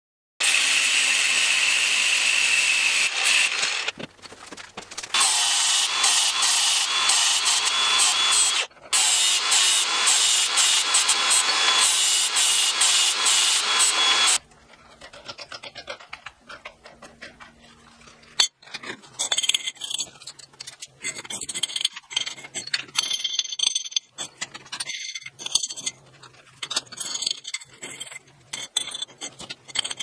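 Cordless angle grinder cutting steel for about fourteen seconds, with a high whine over the grinding and two short breaks, then stopping. Then quieter clinks and scrapes of steel being handled as a nut is run along the cut threaded rod, with one sharp metal knock.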